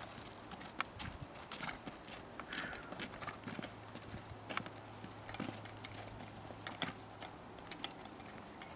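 Faint hoofbeats of a horse walking on a sandy, rocky dirt trail: a scatter of irregular clicks and knocks as the hooves strike ground and stones.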